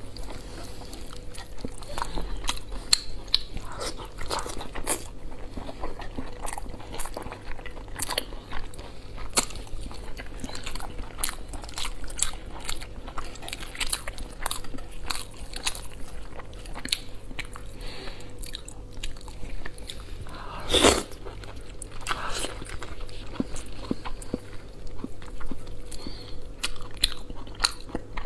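Close-miked eating sounds of someone chewing boiled lamb on the bone, with many short wet mouth clicks, tearing meat with the fingers and one sharper knock about 21 seconds in. A faint steady hum sits underneath.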